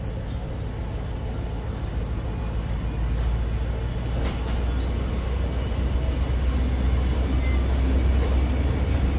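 Passenger train carriages rolling past the platform as the train pulls out of the station: a steady low rumble that grows gradually louder, with a single sharp click about four seconds in.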